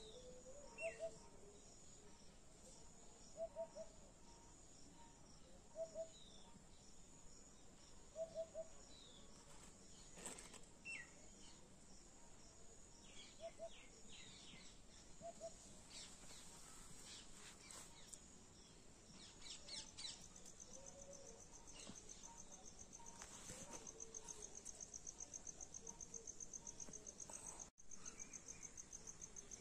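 Quiet rural outdoor ambience: a bird gives short two- or three-note calls every couple of seconds for the first half, with scattered high chirps from other birds. A fast insect trill sets in about two-thirds of the way through, over a steady insect hiss.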